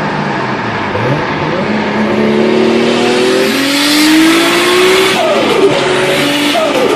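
Turbocharged car engine accelerating hard, its pitch rising over about four seconds with a growing turbo hiss. It then drops sharply twice as the throttle closes, with the fluttering chatter of compressor surge on lift-off.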